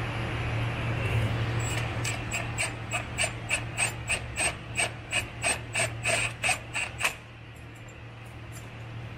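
Ratchet wrench with a 10 mm socket clicking in an even rhythm, about three clicks a second, as a charge-pipe coupler clamp is tightened, then stopping abruptly.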